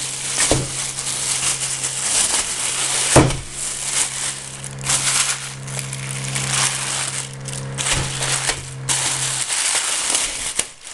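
Thin plastic carrier bag crinkling and rustling in irregular bursts as a large chunk of sturgeon is pulled out of it, with a couple of knocks. A steady low hum runs underneath and stops about nine and a half seconds in.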